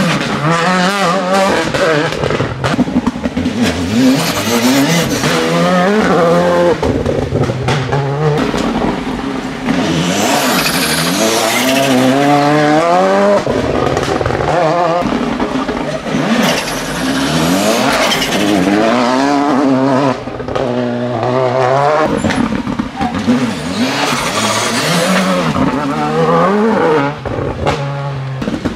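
Rally cars, among them Škoda Fabias and a Volkswagen Polo, passing one after another at full throttle. Each engine revs up through the gears, its pitch climbing and dropping back at every shift, with loud passes following each other all through.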